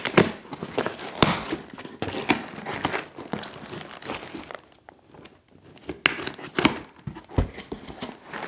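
A cardboard box being opened by hand: flaps scraping and shiny packing material inside crinkling and rustling in irregular snatches, with a short lull about halfway through.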